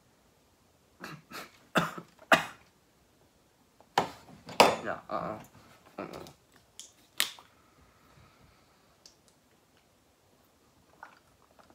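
A person coughing in two bouts of sharp bursts, choking on a mouthful of dry ground cinnamon they cannot swallow.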